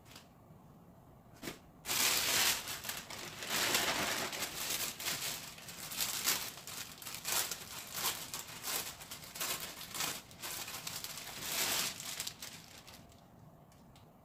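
Clear plastic poly bag crinkling as a garment is unwrapped and pulled out of it. The crinkling starts about two seconds in, goes in irregular rustles, and stops near the end.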